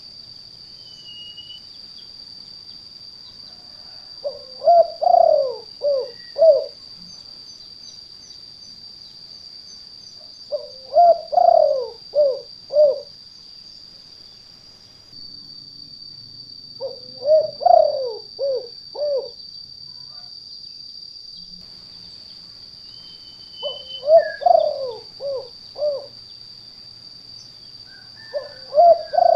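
Spotted dove (tekukur) cooing in its 'kuk 2' call: a phrase of several short, low coos repeated about every six seconds, five times. A steady high-pitched whine runs underneath.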